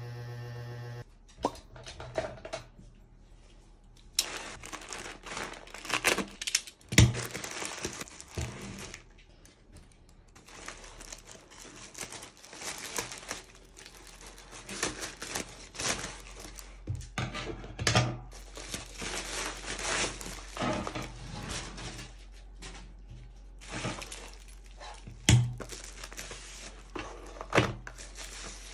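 Hands unboxing a parcel: a plastic mailer bag torn open, with plastic packaging and bubble wrap crinkling and rustling. A few sharp thuds as things are set down or knocked on the desk.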